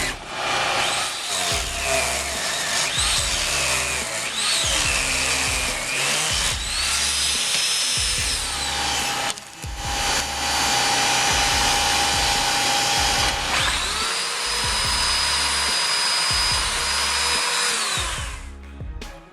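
A power-tool motor spins up, runs at a steady high pitch and winds down, twice at length, over background music with a steady bass beat.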